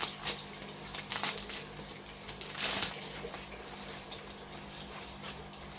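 Plastic bubble wrap being pulled open and handled, crinkling and rustling in a few short bursts, the longest about two and a half seconds in.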